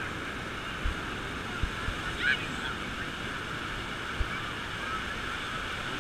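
Beach ambience: a steady hiss of surf with faint distant calls, and one short, louder rising call about two seconds in. A few brief low bumps from wind or handling on the microphone.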